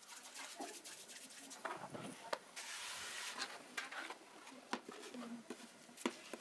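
Hands working a ball of bread dough in flour: light pats and taps of dough on a floured wooden board, with a short soft rustle midway as a hand digs into the flour bowl.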